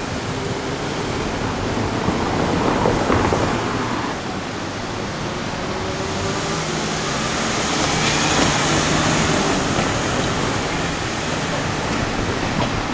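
Steady outdoor traffic noise that swells from about six to ten seconds in, with a rising hiss and a low hum, as a vehicle passes.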